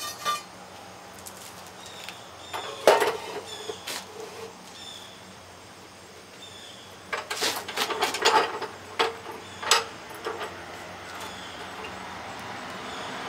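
Metal knocks and clanks as a half-inch black steel pipe handlebar is set into a chop saw's vise and clamped, with one sharp knock about three seconds in and a cluster of clatter a few seconds later; the saw is not running.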